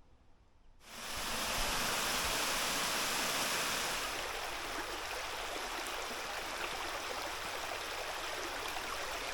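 Steady rush of flowing water from a stream. It starts abruptly about a second in and eases a little a few seconds later.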